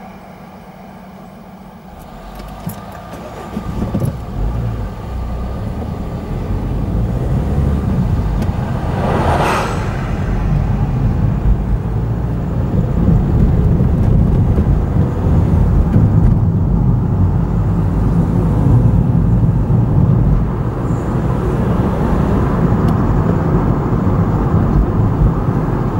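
Car pulling away from a standstill and driving on, its engine and tyre rumble getting much louder about two seconds in and staying steady. A brief whoosh sounds about nine seconds in.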